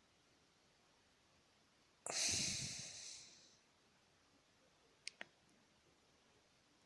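A man's sharp exhale, a sigh into the microphone about two seconds in that fades over a second or so, followed about five seconds in by two quick small clicks.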